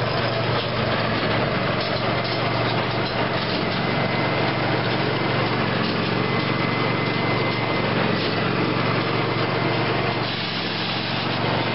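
Large square hay baler and the tractor pulling it running steadily: engine hum under a dense machinery clatter, with a faint steady high whine.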